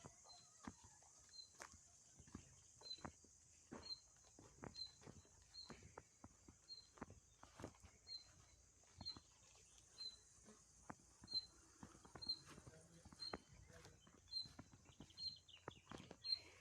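Faint outdoor ambience: a short, high chirp repeated about twice a second over a steady high hiss, typical of calling insects or a bird, with scattered soft knocks.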